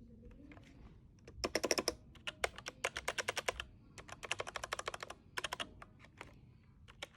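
Lofree mechanical keyboard being typed on: quick runs of key clicks in several bursts, separated by short pauses.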